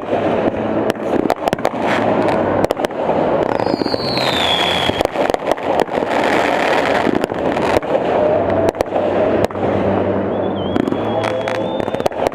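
Fireworks display going off continuously: dense crackling and rapid bangs. A whistle falls in pitch about four seconds in, and a higher whistle holds near the end.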